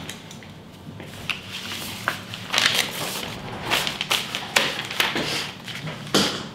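Sheets of printed paper rustling and crinkling as they are handled and flipped through, in a run of irregular swishes.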